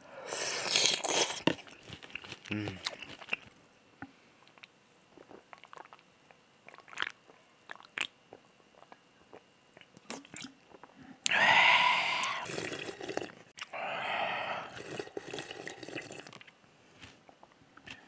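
Eating cold squid mulhoe: a long slurp of noodles and broth at the start, then quiet chewing with small mouth clicks, and two long loud slurps or gulps in the second half.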